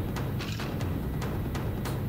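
Background music with a steady, drum-heavy beat.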